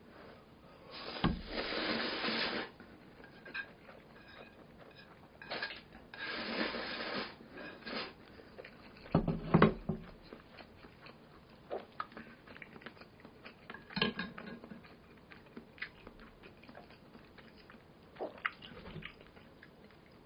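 Close-up eating sounds of fire noodles with meatballs: two long noisy slurps of the noodles, a few sharp clinks of a utensil against the bowl (the loudest about nine and a half seconds in), and soft chewing clicks in between.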